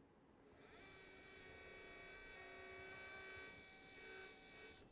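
Implant surgical handpiece spinning a 5.0 drill into a hard-bone training block: a steady high whine that spins up about half a second in, holds evenly, and stops just before the end.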